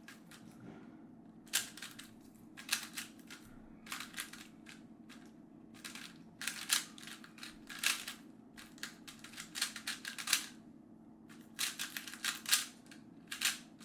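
GAN smart speedcube being turned fast during a solve: quick runs of sharp plastic clicks as the layers snap round, broken by short pauses.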